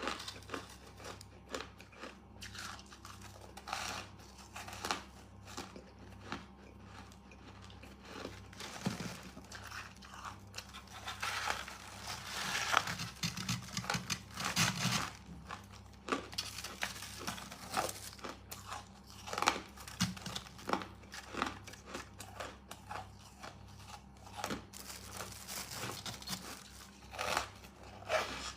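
Biting and chewing crunchy white freezer-frost ice, a run of sharp crunches and crackles close to the microphone, thickest in the middle.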